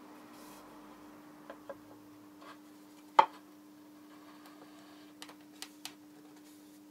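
Mahogany guitar neck being set into the neck pocket of a mahogany body: one sharp wooden knock about three seconds in, with a few light taps later as the fit is checked. A soft brushing of a hand sweeping sawdust off the wood comes first, over a steady low hum.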